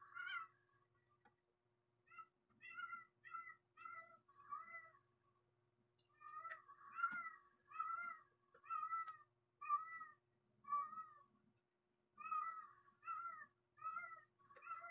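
A cat meowing over and over, faintly, in quick short cries of about two a second, coming in runs with brief pauses between them.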